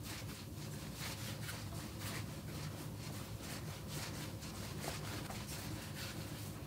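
Hands rolling a ball of pretzel dough into a log on a bamboo cutting board: faint, repeated soft rubbing over a low steady hum.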